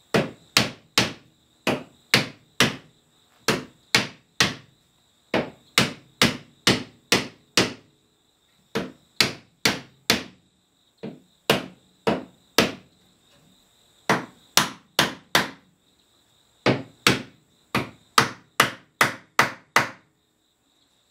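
Hammer blows on a wooden chair's crest rail, driving it down onto the tops of the spindles and posts: sharp knocks in quick runs of about two to three a second, with short pauses between runs. A steady high chirring of insects runs behind.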